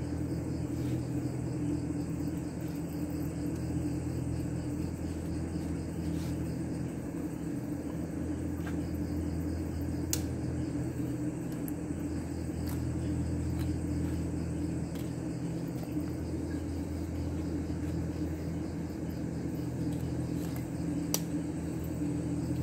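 A steady low mechanical hum, like a motor running, with a few steady tones in it, and insects chirping faintly high above it. A few faint clicks come and go.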